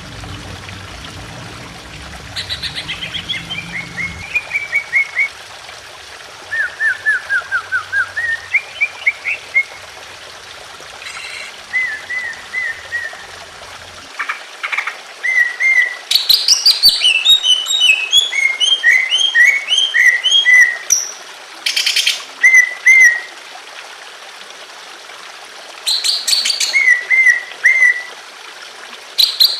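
Cucak ijo (green leafbird) singing in bursts of rapid repeated chirping notes, some runs falling and some rising in pitch, with the busiest singing in the middle, over a steady trickle of water.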